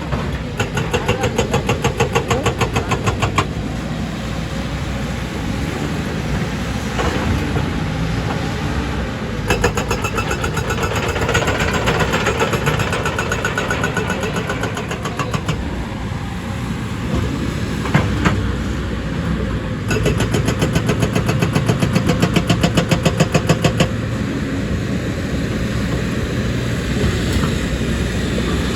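Excavator's diesel engine running with a fast, steady firing pulse that strengthens and eases several times as the machine works, with one sharp knock about two-thirds of the way through.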